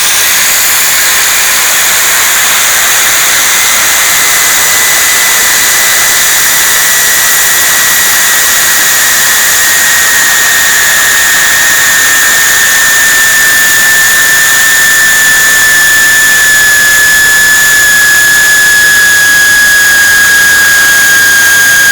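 Electric drill spinning an ultrathin abrasive cutting disc through steel: a loud, steady grinding hiss with a high whine that slowly sinks in pitch.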